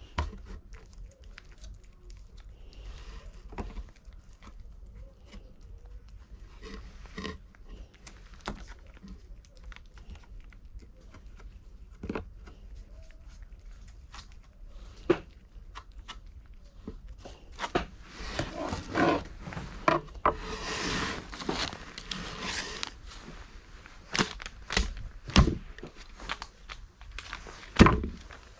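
Cat food being handed out to a cat: scattered small clicks and knocks, a stretch of rustling and crinkling like a food bag being handled a little past the middle, and a few heavier thumps near the end as bowls are set down.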